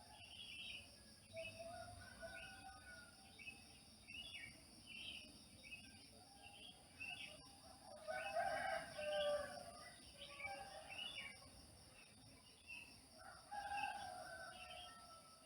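A rooster crowing three times, loudest at the middle crow, with small birds chirping between the crows.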